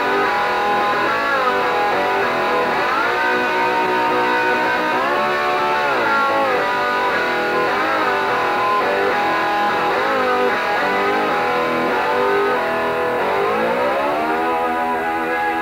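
Guitar-led music with bending, sliding notes over a steady backing, and a long upward slide near the end.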